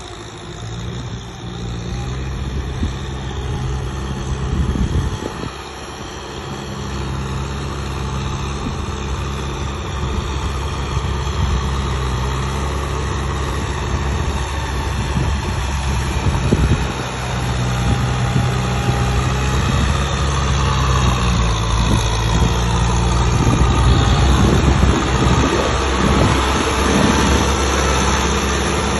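Diesel engine of a heavy machine running steadily, its pitch shifting a little now and then and growing gradually louder.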